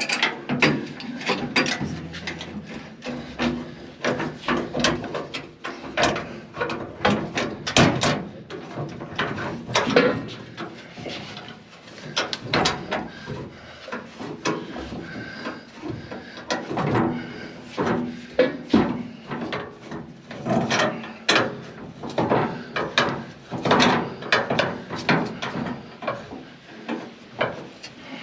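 Irregular knocks, clanks and scraping as the steel floor plate of a John Deere combine's feederhouse is shifted and worked into place.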